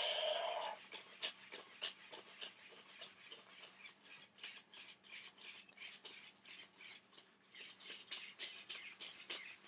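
Remote-controlled robot dinosaur toy walking across carpet: its motor-driven legs make a steady run of sharp clicks, about four a second. It opens with a loud harsh burst that stops under a second in.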